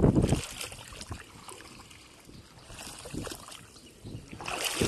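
Splashing in shallow water as bamboo polo fish traps are worked and lifted: a loud splash right at the start, smaller splashes in the middle, and more splashing near the end.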